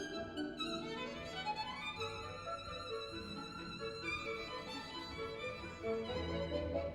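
Violin music played back over a high-end hi-fi system in a demo room, with sliding violin notes and low bass notes underneath.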